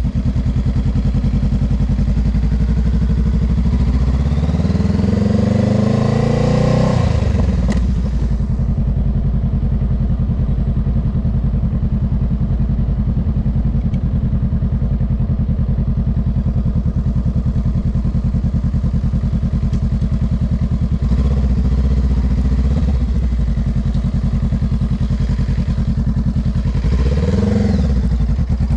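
Honda Rebel 500's 471 cc parallel-twin engine running under way. It rises in pitch as the bike accelerates about four seconds in, falls back to a steady low running note about eight seconds in, and picks up briefly twice more later, the second time near the end.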